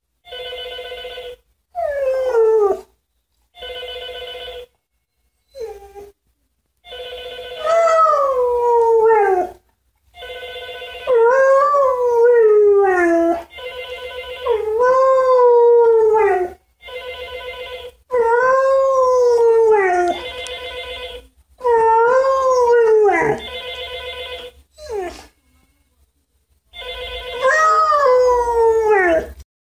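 A telephone rings over and over while a Siberian husky howls along with it. The rings are steady bursts about a second long, and each howl starts high and slides down in pitch, about ten howls in all.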